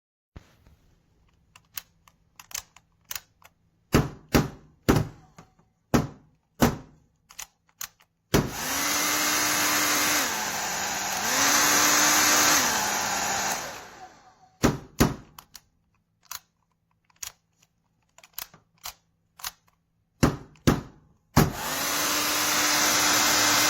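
Conair Cord-Keeper 1875 W hair dryer switched on and blowing, twice for several seconds each, a steady rush of air over a motor hum; in the first run the motor's pitch drops for a moment and then comes back up. Between the runs come clicks and knocks of the dryer being handled and switched.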